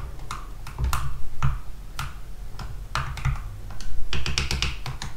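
A plastic biro stirring electrolyte in a plastic jug, knocking and clicking against the jug in an irregular run of light clicks, with a quick flurry about four seconds in: the electrolyte being agitated during zinc electroplating.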